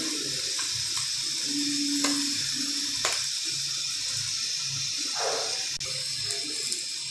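Mutton pieces in chilli masala and oil sizzling in a kadai on a medium flame: a steady hiss with a few light clicks as green chillies go in.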